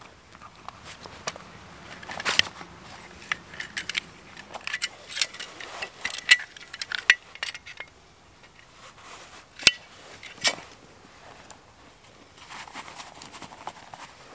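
Metal buckles and fittings clinking and clicking as gear is handled and pulled out of a waxed-canvas backpack. Two sharp metallic clicks come about ten seconds in, and there is soft rustling near the end.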